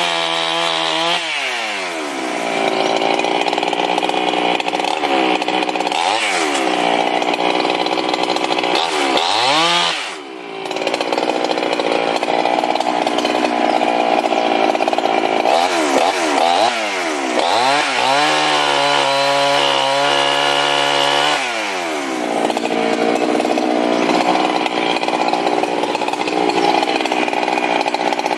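Gas chainsaw bucking poplar logs, revving up and down between cuts and running at high revs under load through the wood. It drops briefly to idle about ten seconds in.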